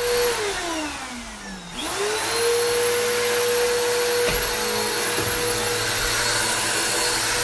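Vacuum cleaner motor running with a steady whine and a loud rush of air. Early on its pitch sinks as the motor slows, then it spins back up to full speed about two seconds in and runs steadily, with a couple of faint low thumps midway.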